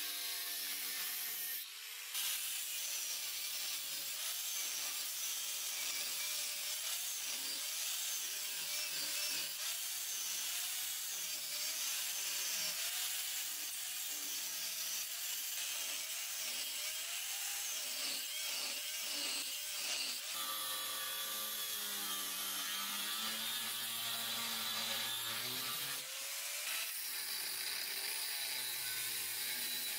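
Angle grinder with a thin cut-off disc cutting into leaf-spring steel. Its motor pitch sags and recovers again and again as the disc bites into the blade and is eased off, over a harsh hiss of the cut. The cut breaks off briefly about two seconds in, and runs steadier for several seconds past the middle.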